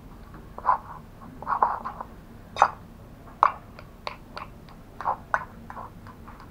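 Metal fork mashing potatoes in a ceramic plate: irregular clinks and scrapes of the fork against the plate with soft squishes of potato, about two a second.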